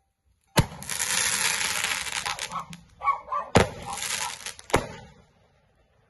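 Fireworks going off: a sharp bang, then about two seconds of loud hissing, then a second bang with more hissing and a last crack before it dies away.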